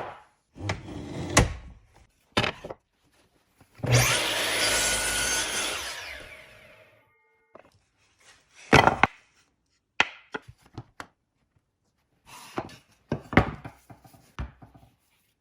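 Woodworking sounds: short knocks and clatters of wooden pieces being handled, and one longer cutting noise of about two and a half seconds, starting about four seconds in, that fades out.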